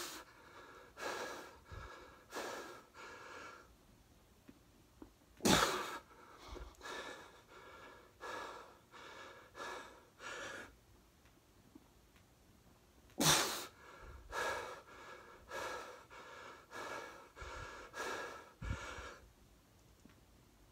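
A man breathing hard through a set of push-ups. There is a short puffing breath about every two-thirds of a second, in runs, and three much sharper, forceful exhales break in at the start, about five seconds in and about thirteen seconds in.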